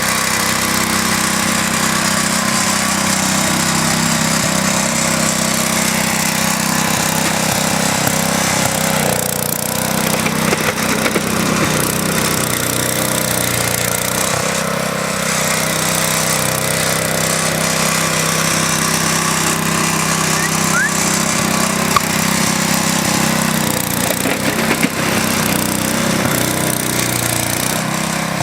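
Small engine of a vintage Wheel Horse garden tractor running steadily while plowing snow, with a few brief knocks.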